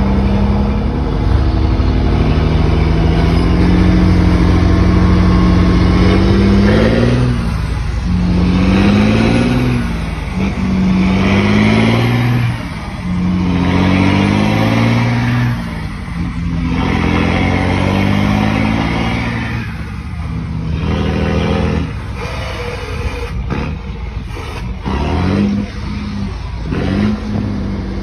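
Iveco Tector truck's diesel engine running under load. It holds a steady pitch at first, then from about seven seconds in revs up and drops back again and again as it is shifted up through the gears.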